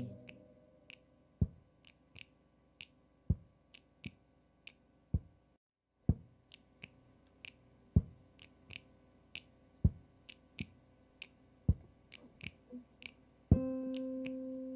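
Background music in an instrumental break of a song: a sparse electronic beat of low thumps and light ticks, which drops out briefly about six seconds in. A held keyboard chord comes in near the end.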